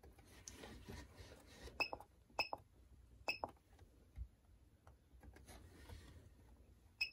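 Herpstat reptile thermostat giving a short high beep at each button press as its menu is stepped through: four quick chirps, the first about two seconds in and the last near the end, with faint clicks of the buttons between them.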